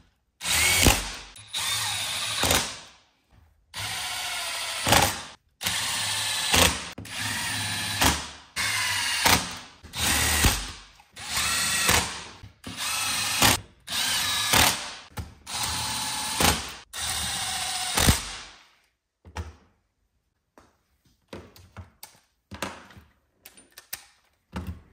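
Cordless power tool driving the crankcase bolts of a Rotax 787 engine in, in about a dozen short bursts of motor whine, each stopping sharply as a bolt runs down. After that come only a few light clicks.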